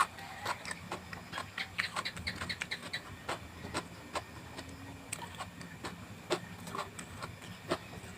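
A person chewing vegetables close to the microphone: irregular crunches and clicks, with a quick run of them about one and a half to three seconds in.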